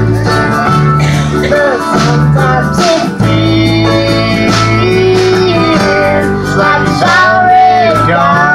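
Live acoustic country band: a young girl singing lead with a wavering melody over strummed acoustic guitar and sustained upright bass notes.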